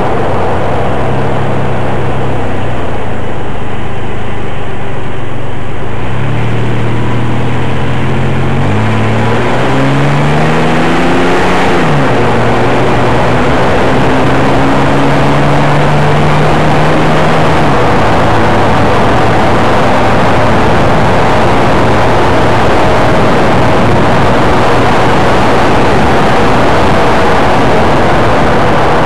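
Chevy ZR2's engine heard from under the truck while driving: the revs climb, drop suddenly about twelve seconds in as if on a gear change, and step down again later. A steady rush of road and wind noise runs underneath.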